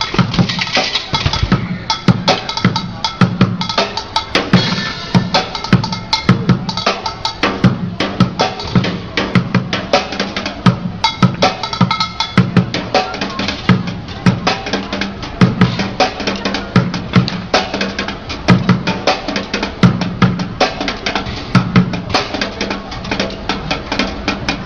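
Fast street drumming with sticks on upturned plastic buckets and a plastic crate: a rapid, unbroken run of strokes with a hollow bucket tone. A metal disc set on a bucket adds a bright cymbal-like wash in about the first second and a half.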